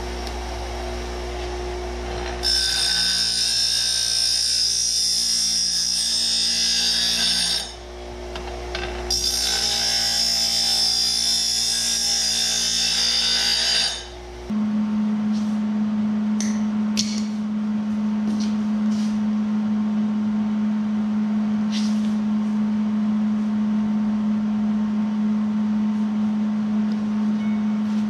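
Bench grinder running, with steel tubing pressed against the wheel in two grinding passes of about five seconds each, a high hiss over the motor's hum. About halfway through, the grinder sound gives way to a different steady low hum with a few faint ticks.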